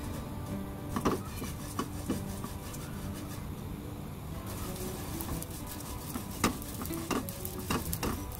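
Small dried anchovies being dry-roasted and stirred in a hot nonstick wok with a silicone spatula. A steady stirring sizzle runs under it, broken by several sharp scrapes or taps of the spatula on the pan. The loudest comes about a second in and another about two-thirds of the way through.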